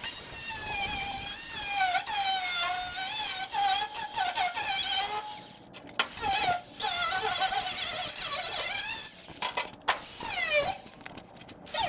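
Angle grinder with a cut-off disc cutting through the rusted steel body panel of a 1957 VW Beetle. Its high whine wavers and dips in pitch as the disc bites into the metal, with short breaks about halfway and near the end.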